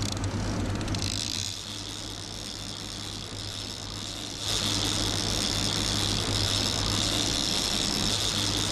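Motor boat's engines running steadily while a big-game trolling reel's clicker buzzes as line pays out to a lure. The buzz comes in about a second in, eases, then runs much louder from about halfway through.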